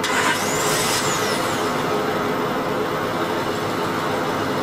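Honda V6 engine running at a steady idle. There is a short hiss at the very start, and a faint high whistle rises and falls during the first second.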